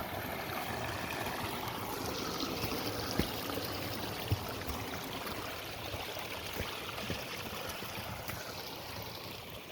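Running water flowing steadily, with a few faint knocks.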